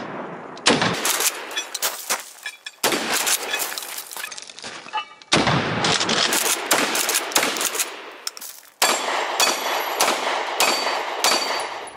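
Gunshots from a 12-gauge pump shotgun, a few spaced seconds apart, each trailing off in a long echo. Near the end comes a quicker string of pistol shots, about two a second.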